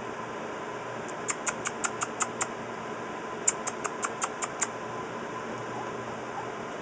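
Pit bull puppies squeaking: two quick runs of short, high-pitched squeaks, about six a second, the second run starting about a second after the first ends, over a steady hiss.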